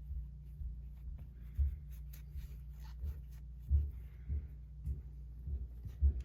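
Rubbing and scrubbing on a small metal fidget-toy part as it is cleaned of built-up metal grime: faint irregular scratching with soft knocks, over a steady low hum.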